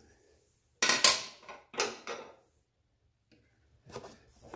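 Two short scraping clatters about one and two seconds in, as the plastic discharge chute and its steel spring are handled against the mower deck, then a few faint knocks near the end.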